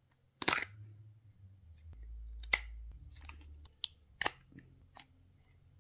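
Sharp plastic clicks and knocks from opening the battery compartment of a Philips SatinShave Essential shaver and sliding AA batteries out of it, the loudest about half a second in and about four seconds in, with a low rumble of hands handling the casing in between.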